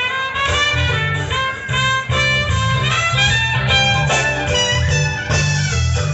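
Live band playing a reggae tune, with a trumpet taking a solo melody over bass and guitar.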